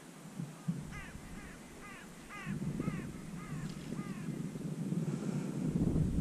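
A crow cawing: a quick run of about eight short, harsh calls, each falling in pitch, over about three seconds. Under it, from about halfway, comes a low rustling rumble that grows louder.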